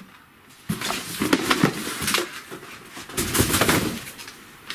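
Packaging rustling and crinkling as it is handled and pulled out of a shipping box, in a series of irregular bursts.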